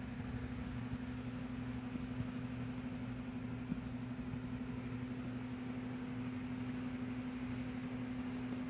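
Steady machine hum with an even background hiss, and one faint tap about halfway through.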